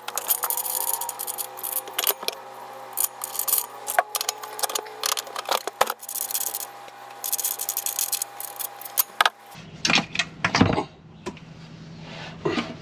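Metal clinks and taps of an adjustable wrench working the terminal nuts on a power inverter, with the heavy battery-cable lugs rattling as they come loose. A few heavier clunks follow near the end as the inverter is handled.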